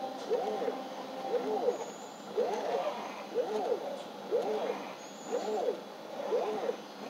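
A person breathing heavily, each breath voiced as a short moan that rises and falls in pitch, in a steady rhythm of about one a second.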